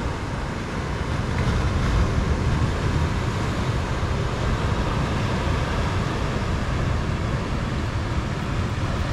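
Steady wind rumbling on the microphone over the wash of ocean surf, with no distinct events.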